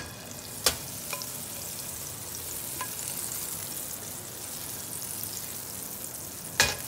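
Butter sizzling as it melts in a hot nonstick frying pan, a steady high hiss that grows a little as the pan is lifted and swirled. A few light ticks and clanks of the pan, with a sharp knock near the end.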